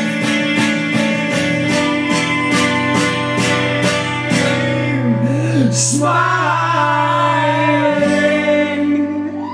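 Acoustic guitar and mandola strummed together, ending a song: steady strums about two or three times a second, then a final chord left ringing from about four and a half seconds in. A wavering voice rises over the ringing chord about six seconds in.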